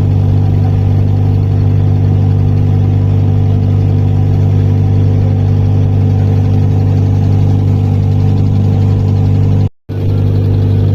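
Motorboat engine running steadily at an even pitch. The sound cuts out for a moment near the end.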